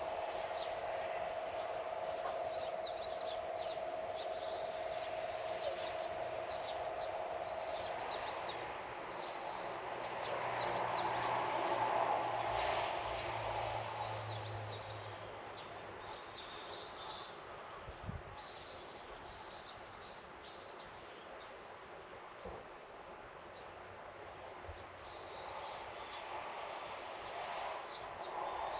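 Outdoor ambience: small birds calling repeatedly with short high chirps over a steady background hiss. A steady hum sounds for the first third, and a louder swell of noise rises and fades about ten to fifteen seconds in.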